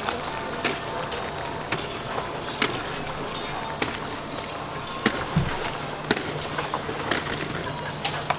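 Sharp clacks and knocks of kitchen utensils about once a second at a street food stall, over a steady low hum and an even hiss.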